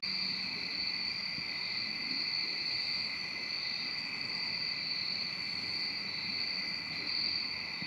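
Steady chorus of night-singing insects: a continuous high-pitched trill at two pitches.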